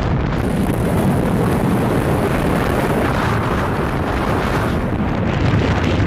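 Loud, steady wind buffeting the microphone of a moving vehicle, with road noise underneath.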